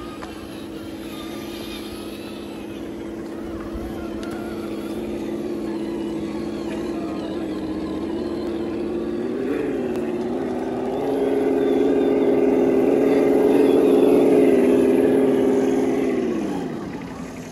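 Electric drive of RC scale crawler trucks running slowly over rocks, a steady motor hum. About ten seconds in it rises in pitch and grows louder as the throttle opens, then drops in pitch and fades near the end.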